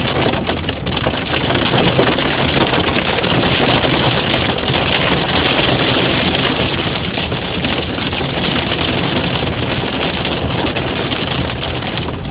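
Heavy rain and hail pelting a car's roof and windshield, heard from inside the cabin as a dense, steady patter that eases a little toward the end.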